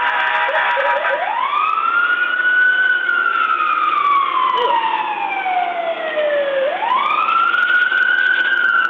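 Police car siren: a few quick rising yelp chirps, then a long wail that climbs, sweeps slowly down over about five seconds and climbs again near the end, over a hiss of road and engine noise.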